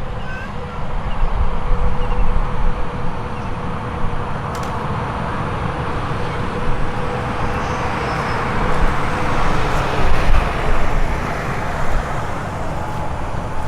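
Jet airliner engines passing, the noise swelling to its loudest about nine to ten seconds in, with a steady low rumble underneath.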